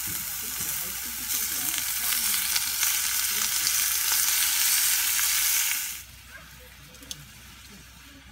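Food sizzling in a hot pan, a steady frying hiss that grows louder about a second in and cuts off suddenly about six seconds in.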